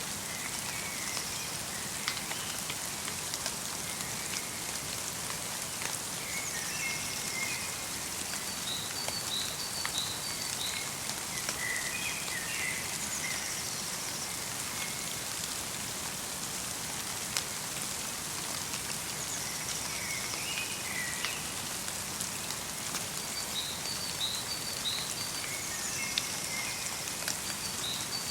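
Steady light rain falling in a forest, a soft even hiss with scattered drop ticks. Small songbirds chirp faintly in short bursts every few seconds.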